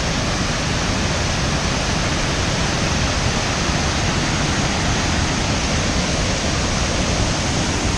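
Waterfall roaring: a loud, steady, even rush of falling river water.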